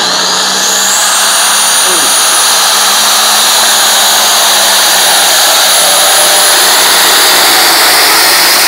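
Turbocharged diesel engine of a pulling tractor running at full throttle as it launches and drags a weight-transfer sled. A loud, continuous engine noise carries a high whine that climbs in pitch over the first second and a half and then holds.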